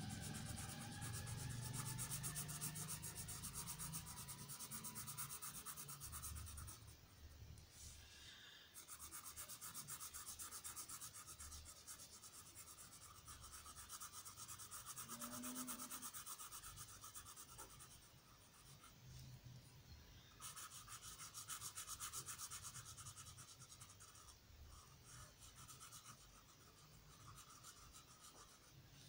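Felt-tip marker rubbing quickly back and forth on paper as it fills in a thick calligraphy stroke, stopping briefly a few times.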